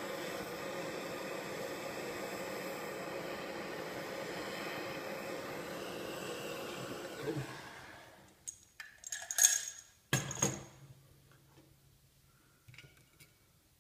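Propane hand torch hissing steadily as it heats the brass loop of a Coleman Q99 lantern generator to anneal the brass, then shut off about seven seconds in. A few sharp metallic clinks follow as tools are handled on the metal tray.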